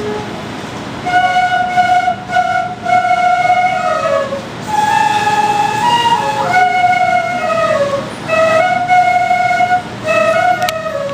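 A group of danso, Korean end-blown flutes, playing a slow melody together in long held notes, with brief pauses between phrases.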